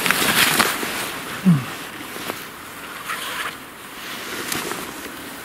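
Rustling of clothing and soil as a digger reaches into a pit and lifts out a small buried metal tag, loudest in the first second, with a short grunt about a second and a half in.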